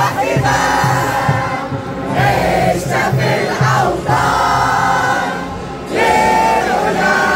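A crowd singing and chanting together over loud music with a steady bass beat; the loudness dips briefly about five seconds in, then picks up again.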